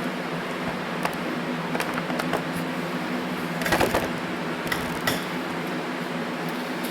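Scattered light clicks and taps of carburetor parts and tools being handled at a workbench, over a steady low hum.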